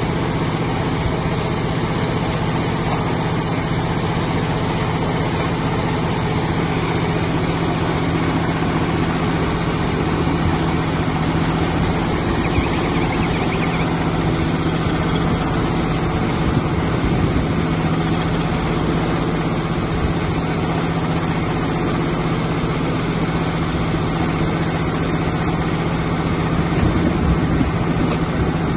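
Silage baler wrapper machine running at a steady speed, a constant low engine-like hum with mechanical noise over it.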